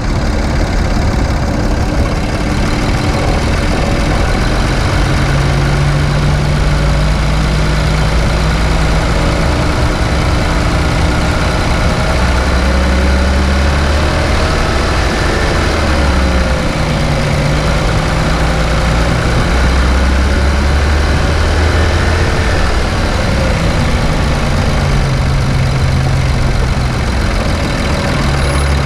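2017 Infiniti Q50's VR30 twin-turbo V6 running on a drive, its pitch rising and falling several times with the revs, over steady road and engine noise.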